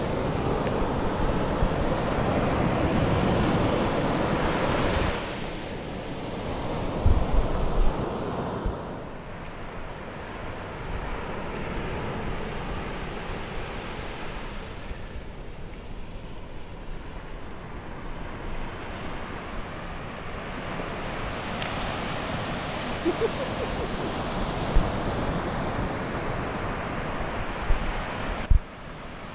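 Ocean surf washing up a sandy beach, with wind rushing on the microphone. The surf is loudest for the first few seconds, then drops about five seconds in to a steadier, quieter wash, broken by a few short low thumps.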